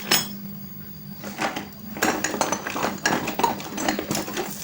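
Metal hand tools and parts clinking and clattering while a motorcycle is being taken apart, with one sharp clink just after the start and a dense run of clattering from about halfway on.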